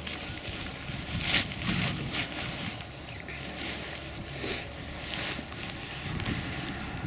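Tent fabric rustling and swishing in brief bursts as the collapsed tent is rolled and packed, over wind noise on the microphone.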